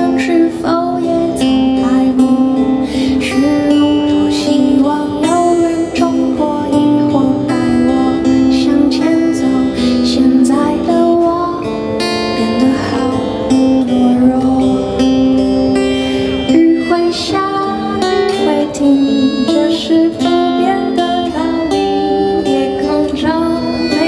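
Live pop band music: accordion, electric bass and drums playing a song, with held, steady notes throughout.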